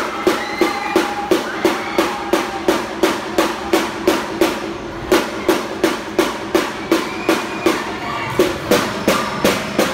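A cheering squad chanting in unison over a steady percussive beat of about three sharp strikes a second.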